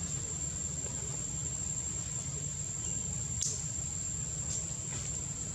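Insects droning: one steady, unbroken high-pitched tone over a low rumble, with a few faint clicks about three and a half and four and a half seconds in.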